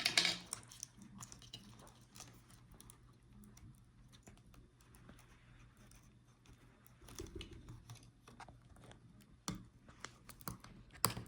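Scattered light clicks and scratches of hands working the DC power jack's cable connector loose from the motherboard of an opened Dell Latitude 5310 laptop, with a louder click at the start and a couple of sharp clicks near the end.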